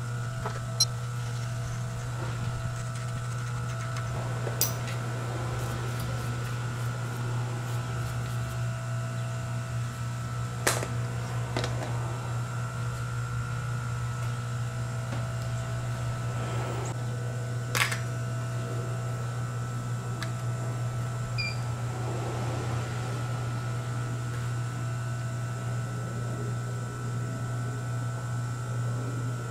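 Steady electrical hum of the machine shop, with a few sharp metal clicks and knocks as the cast bearing hub and tooling are handled and set in the milling-machine vise.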